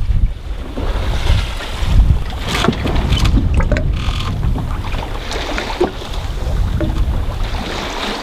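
Wind buffeting the microphone over the rush of water along the hull of a 1988 Sabre 30 sailboat under way, with a few small knocks and rattles about two and a half to four seconds in.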